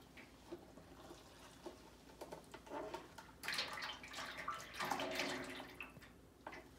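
Hand pump of a filter press being worked, drawing maple syrup through a hose, with liquid gurgling and two louder spells of liquid noise about three and a half and five seconds in.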